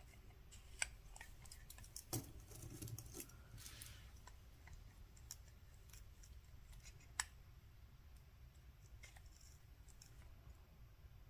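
Faint, scattered small clicks and taps from handling a wristwatch on a stainless-steel bracelet while it is measured, with a soft rustle a few seconds in; the sharpest clicks come about a second, two seconds and seven seconds in, over near silence.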